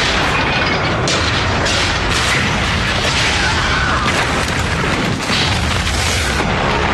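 Film battle sound effects of an air attack on warships: a continuous, loud din of explosions, with repeated sudden blasts every second or so.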